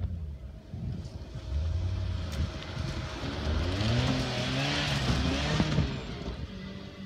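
An SUV engine revs hard, its pitch climbing through the middle, as the vehicle drives through deep loose sand. A loud hiss of sand spraying off the spinning tyres peaks with the revs; the tyres are struggling for grip in the soft sand.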